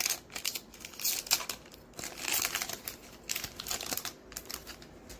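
Foil Pokémon Team Up booster pack wrapper crinkling in irregular bursts as it is opened by hand. It quietens near the end.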